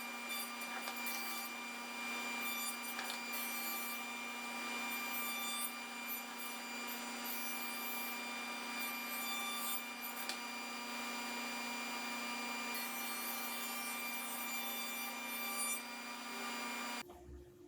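A small power tool running steadily against wood, with a constant hum and a rubbing, scratchy noise that comes and goes, switched off abruptly near the end.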